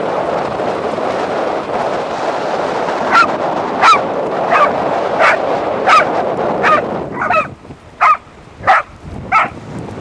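A dog barking repeatedly, about one and a half barks a second, starting about three seconds in. Under it, a steady rush of wind and water splashing drops away about seven seconds in, leaving the barks on their own.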